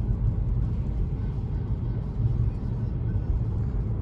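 Steady low rumble of a car's engine and tyres heard from inside the cabin while driving on rain-wet roads.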